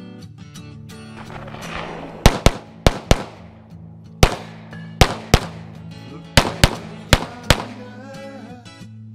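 Pistol fired eleven times in quick succession, mostly in close pairs about a quarter-second apart, over guitar background music.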